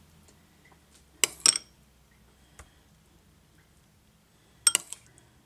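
A metal spoon clinking against the dishes as barbecue sauce is spooned over meatloaves in a muffin tin: two sharp clinks about a second in, a faint tick, then a quick cluster of clinks near the end.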